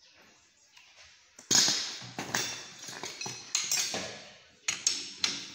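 Sharp metal clanks and clinks of a steel chuck key and tools against a lathe's cast-iron four-jaw chuck, about half a dozen knocks, each with a short ring, the loudest about a second and a half in.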